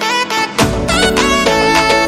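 Instrumental background music with a melodic lead over a steady beat; a fuller bass comes in about half a second in.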